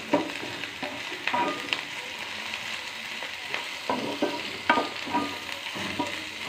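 Carrot and green bean strips sizzling as they stir-fry in a pan, with a spatula scraping and knocking against the pan at irregular moments.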